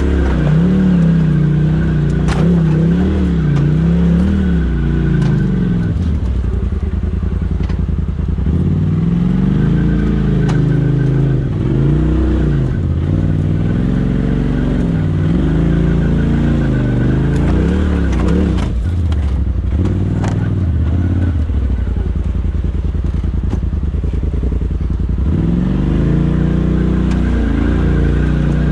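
Polaris RZR side-by-side's engine at low speed, its pitch rising and falling again and again as it is throttled up and over rocks, with a few sharp knocks along the way.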